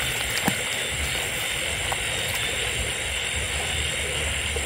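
Steady night chorus of insects and frogs, an even high-pitched drone with a faint click about half a second in.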